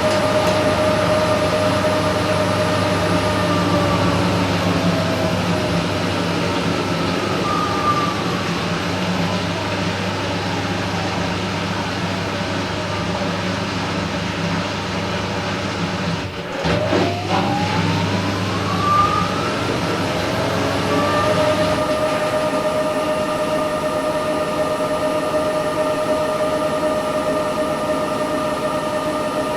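Candy Smart Inverter washing machine running, its inverter motor and drum giving a steady whine over a low hum. The whine slides down in pitch, breaks off briefly a little past halfway, then rises again and settles at a steady pitch, as the drum slows, reverses and speeds back up.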